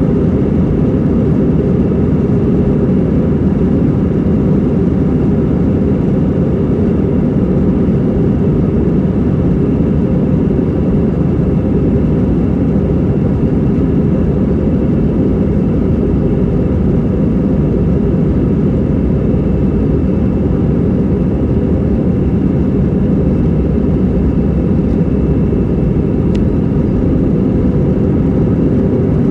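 Airbus A320-200 cabin noise heard from a seat over the wing at takeoff: a loud, steady rumble of jet engines and rushing air with most of its weight low down.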